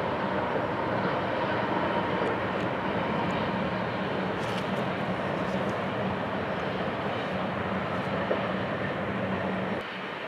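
GE ES44AC diesel-electric freight locomotives working as they pass, with a steady low engine tone, followed by loaded coal hopper cars rolling on the rails. The sound drops off abruptly near the end.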